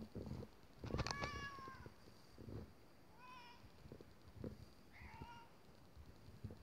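A domestic cat gives three short, high-pitched meows during rough play with a hand, the first and loudest about a second in. Soft thumps and rustles of bedding come between them.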